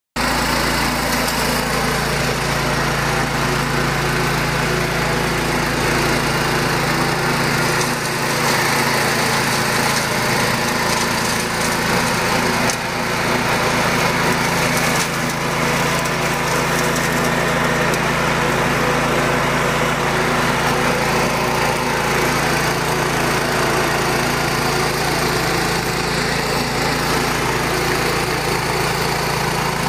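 Cub Cadet 1250 garden tractor's engine running steadily as the tractor drives across the lawn.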